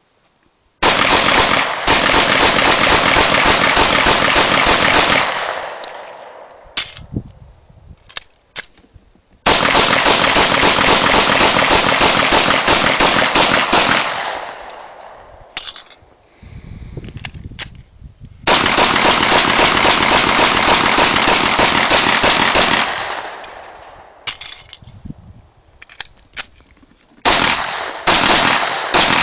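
Grand Power K100 pistol firing L7A1 Hinterberger ammunition in rapid strings of shots. There are four strings of about four to five seconds each, starting about a second in, around nine seconds, around eighteen seconds and near the end. Each string dies away in echo, with a few scattered clicks in the pauses between them.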